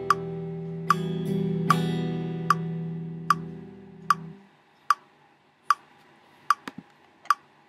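Squier Stratocaster electric guitar, played clean, letting a picked chord ring and re-picking it twice before it is cut off about four seconds in. A sharp metronome click sounds steadily about every 0.8 seconds and carries on alone once the guitar stops, with a couple of faint handling clicks near the end.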